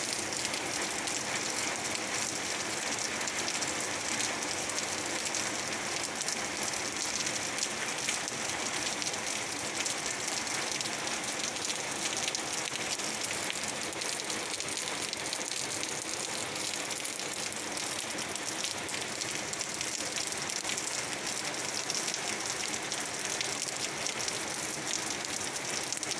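Heavy rain falling steadily: an even hiss with the close tapping of many drops.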